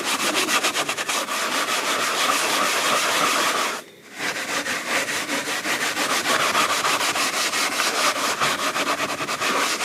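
Rapid back-and-forth rubbing of an abrasive on an oak floor, working paint off the boards and out of the joints. The strokes break off briefly about four seconds in, then resume.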